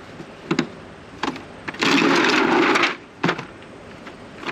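Small cordless power driver whirring for about a second, backing out the small bolts that hold a truck's door speaker. A few light clicks of the tool and socket come before and after it.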